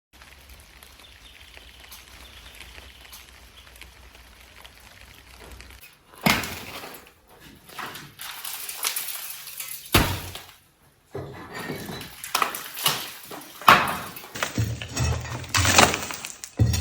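Masonry being broken out of an old fireplace: sharp knocks and cracking, with pieces of brick and tile clattering down. They start about six seconds in, after a low steady hum.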